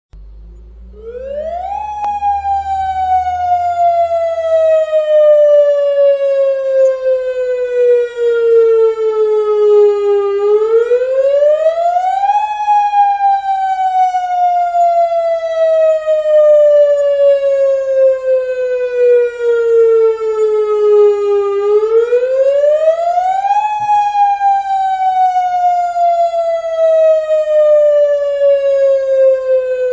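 Tsunami warning siren wailing. About a second in its pitch sweeps up quickly, then slides slowly down over about nine seconds, and this cycle repeats three times.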